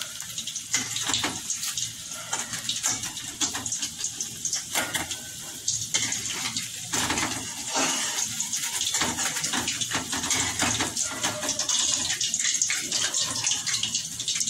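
Hot cooking oil in a wok sizzling steadily, with many small crackles and pops.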